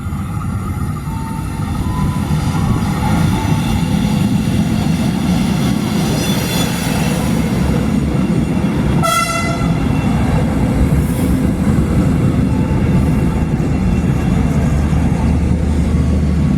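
Train running with a steady low rumble that grows louder over the first few seconds, and a short horn blast about nine seconds in.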